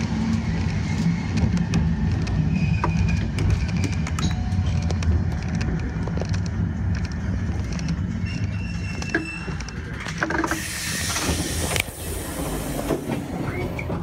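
Keifuku Randen tram running along the track, heard from inside behind the cab: a steady low hum with scattered clicks of the wheels on the rails. About ten seconds in comes a hiss lasting over a second.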